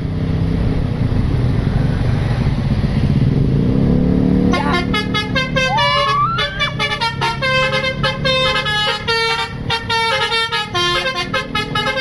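Tour bus engine running as the coach rolls forward. About four and a half seconds in, its multi-tone 'telolet' musical horn (basuri) starts playing a fast tune of short stepped notes, with one rising glide.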